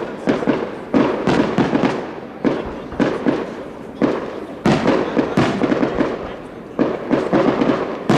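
Aerial fireworks bursting overhead in quick succession: a dense, irregular run of sharp bangs, often several a second, each trailing off in echo.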